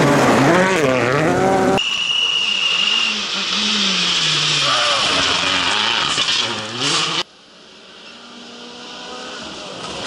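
Turbocharged World Rally cars at full speed on a gravel stage in three short clips: an engine revving up and down through gear changes as a car passes close, then a car sliding through a loose gravel corner with engine pitch rising and falling and gravel hissing under the tyres. After a sudden cut about seven seconds in, a distant car is much quieter and grows louder as it approaches.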